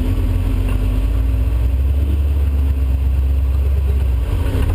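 Off-road race vehicle's engine running steadily under way: a loud, deep, even rumble with a faint steady hum above it.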